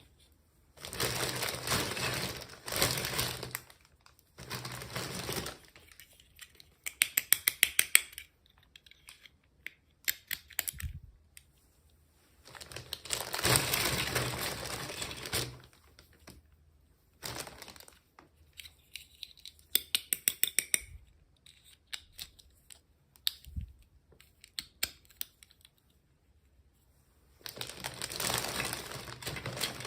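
Handling of small packaging during an unboxing: several bursts of rustling and crinkling lasting a second or two each, and twice a short run of rapid sharp clicks, about eight a second.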